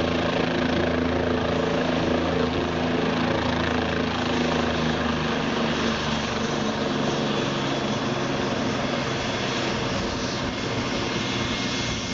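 Bell 407GX helicopter, with its Rolls-Royce 250 turboshaft engine and four-bladed main rotor, hovering just above the pad while landing: a steady low rotor throb under a rush of rotor wash. The throb eases about halfway through, leaving the rush and a thin high turbine whine.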